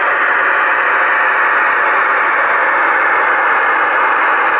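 Model diesel locomotive's sound decoder playing a steady diesel engine running sound through its small onboard speaker. It sounds thin, with almost no bass.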